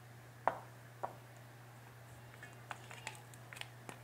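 Hands rubbing garlic paste into raw fish fillets in a stainless steel bowl: soft wet handling sounds with a light tap about half a second in, another at about a second, and a few faint clicks near the end, over a steady low hum.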